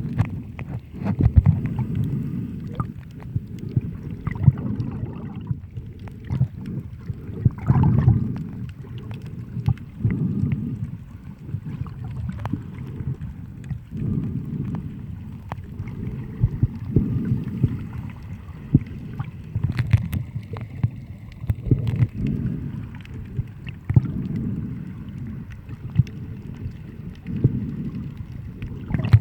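Sea water sloshing and lapping: an uneven low rumble that swells and fades every few seconds, with small clicks and taps.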